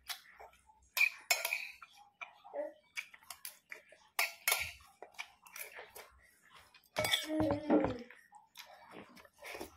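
Metal spoon scraping and clinking against a ceramic plate as food is scooped up, in a run of sharp clicks. A short burst of voice comes about seven seconds in.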